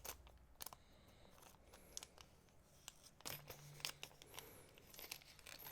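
Faint handling noise of small packets of jewellery-making supplies being sorted: scattered light clicks and brief rustles.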